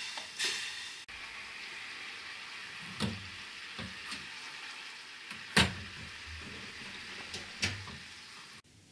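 Liquid poured into a saucepan at the start; then kanroni sauce boiling hard in the pan with a steady bubbling hiss, broken by several sharp pops, the loudest about five and a half seconds in. The sauce is being boiled down to a thick glaze.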